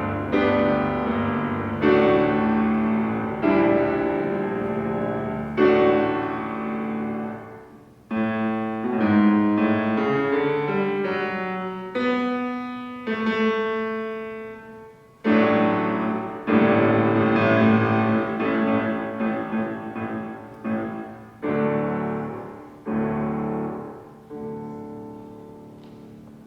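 Solo piano playing a classical piece: a string of struck chords, each ringing on and dying away, until the last one fades out near the end.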